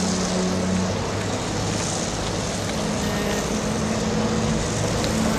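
Steady outdoor street noise with the low hum of a vehicle engine running.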